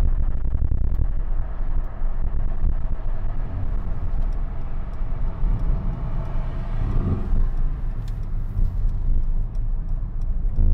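Inside the cabin of a Mercedes-AMG GLC63 S on the move: its 4.0-litre twin-turbo V8 sets up a steady low rumble along with road noise, swelling a little about two-thirds of the way through.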